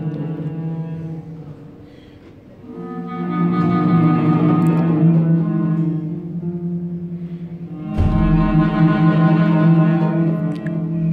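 Live chamber ensemble of flute, cello and harp playing slow, held notes that swell and fade: the music thins out about two seconds in, builds again, and comes back strongly about eight seconds in with a low thump.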